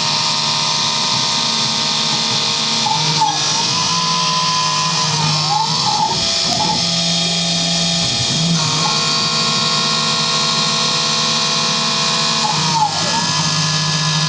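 Small CNC milling machine cutting a plastic block: the spindle and cutter run steadily while the axis drive motors whine in tones that glide up and down several times as the table moves and changes direction.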